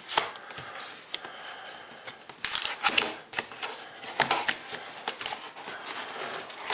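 Hands working at a cardboard shipping box: irregular scrapes, rustles and knocks as it is pulled at without a knife.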